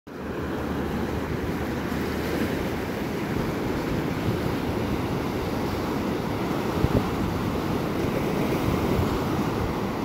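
Atlantic surf breaking offshore and washing up the beach in a steady rushing noise, with wind rumbling on the microphone and a couple of low buffets about seven seconds in.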